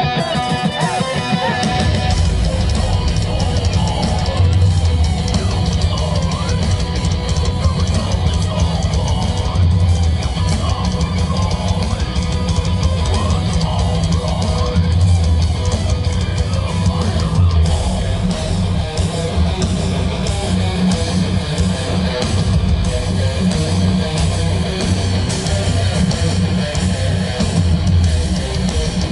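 Melodic death metal band playing live: distorted electric guitars over heavy, fast drums, with the low end of the full band filling in about two seconds in.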